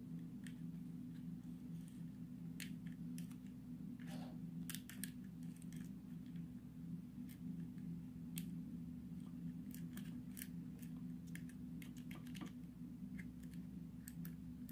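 Faint scattered clicks and taps of a car cigarette-lighter power plug's small plastic parts being handled, over a steady low hum.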